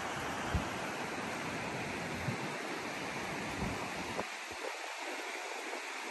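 Shallow mountain river rushing steadily over rocks. Wind buffets the microphone in low gusts for about the first four seconds.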